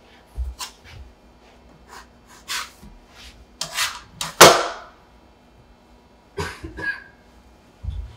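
Metal bench scraper scraping across a floured wooden board, scooping up and loosening cut potato gnocchi, in a series of short scrapes with soft knocks on the wood. The loudest, longest scrape comes about halfway through.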